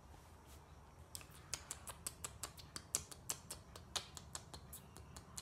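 A rapid, irregular run of sharp little clicks, about five a second, starting about a second in.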